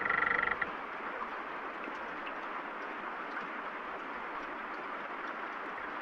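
Steady rain falling, with a short, rapidly pulsed rasp in the first half-second.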